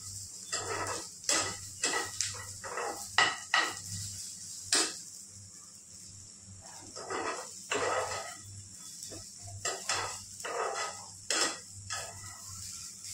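Metal spoon scraping and clinking against a metal cooking pan as food is stirred while it fries, in irregular strokes with a few sharp clinks, over a steady faint sizzle.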